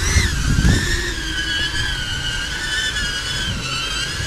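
5-inch FPV quadcopter on small 3-inch five-blade propellers hovering: a steady buzzing whine from the motors and props, its pitch wavering slightly up and down as the throttle corrects. The small props need about 60% throttle just to hold a hover, leaving little power to spare.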